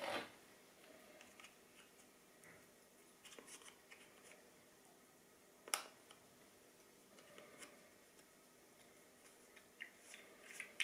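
Near silence with faint handling of a plastic phone case and clip-on lens attachment: a few soft taps and one sharp click about six seconds in.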